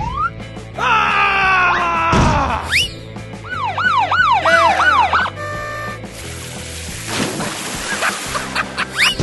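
Cartoon sound effects over background music: sliding whistle tones, then a run of rising-and-falling siren-like wails and a few beeps, followed by a stretch of hissing noise.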